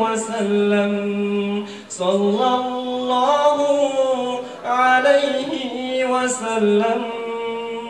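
A man singing an Urdu ghazal unaccompanied, in long held notes. The phrases break briefly about two seconds in and again near five seconds.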